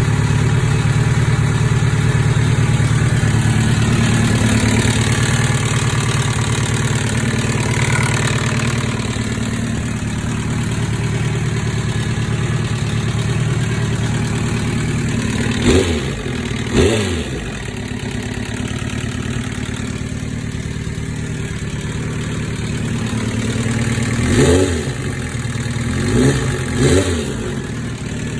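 2005 Kawasaki ZX-10R's inline-four engine idling with a rattle, with five short throttle blips: two in the middle and three close together near the end.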